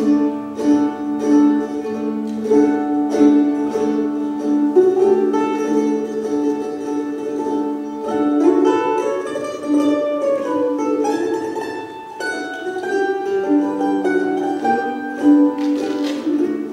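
Mandolin picked live over a looped backing of earlier-recorded plucked string parts. A steady rhythm of picked notes sits over long held tones, and the notes change as the phrase moves on.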